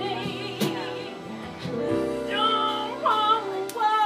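Live band music with a woman singing and a fiddle; from about two seconds in, high held notes with vibrato.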